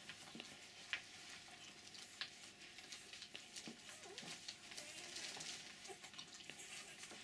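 Newborn puppies suckling on their mother, a faint crackle of wet clicks and smacks with a couple of sharper clicks about a second and two seconds in.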